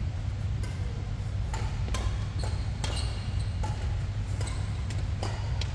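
Badminton rackets striking a shuttlecock during a rally: a string of sharp hits, about one every half second to a second, over the steady low hum of the sports hall.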